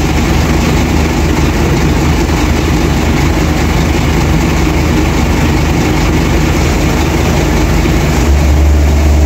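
Heavy truck engine idling steadily with a low hum, growing louder about eight seconds in.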